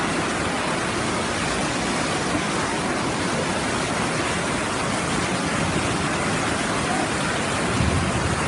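Floodwater rushing fast and turbulently through a street, a steady, dense rush of water. A brief low thud comes near the end.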